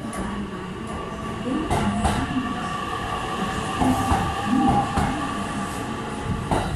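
JR West 227 series electric train pulling out and running past the platform: its motors give a steady whine over a low rumble, with a few sharp clicks from the wheels.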